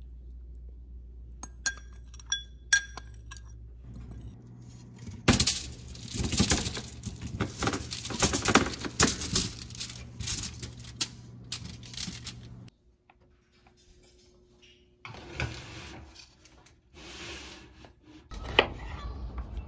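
Metal utensils clinking and scraping against cookware. A few sharp, ringing clinks come about two seconds in, then a long stretch of dense clattering and scraping, and a few shorter bursts near the end.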